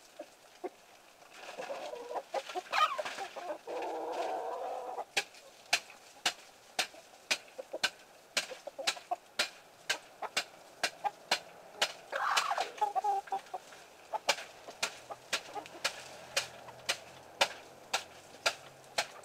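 A flock of chickens clucking and squawking as they feed, with two bursts of calls, one near the start and one past the middle. Through the second half, sharp short taps repeat about twice a second.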